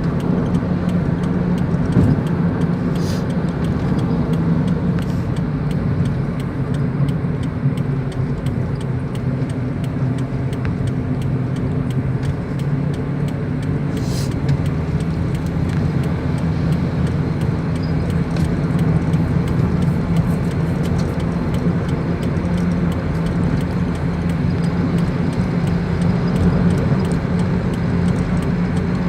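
A car running along a road: a steady low engine and tyre drone that holds the same level throughout, with a few faint ticks.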